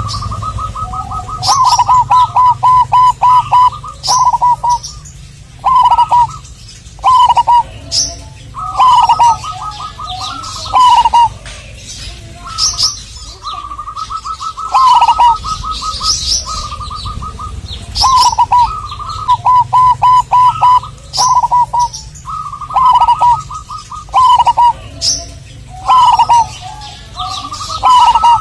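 Zebra dove (perkutut) cooing: phrases of fast staccato coo notes repeated every second or two, many ending with a falling note. Short, high chirps of small birds sound between and over the phrases.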